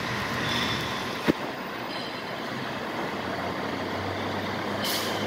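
A train running along an elevated railway bridge overhead, heard from beneath as a steady noise, with one sharp click about a second in and a brief hiss near the end.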